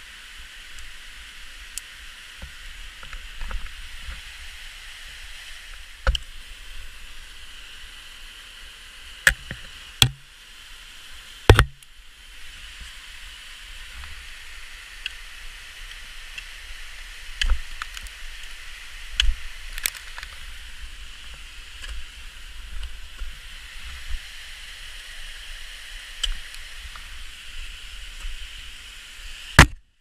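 Ice axes striking into waterfall ice: sharp impacts at irregular intervals, several seconds apart or in quick pairs, over a steady hiss.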